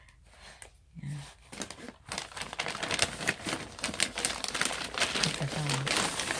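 Packaging crinkling and rustling as a gift is unpacked by hand. It starts about two seconds in as a busy run of small crackles.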